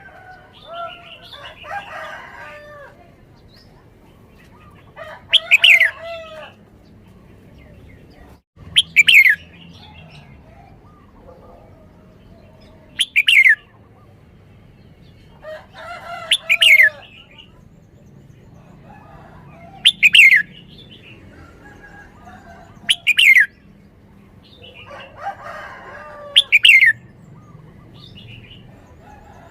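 Red-whiskered bulbul singing: short, loud song phrases repeated about every three to four seconds, about eight times, with softer chattering between them.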